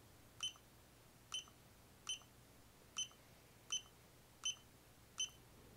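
Digital LiPo cell checker beeping while it reads a 6S LiPo pack: seven short, high beeps, each about three-quarters of a second to a second after the last.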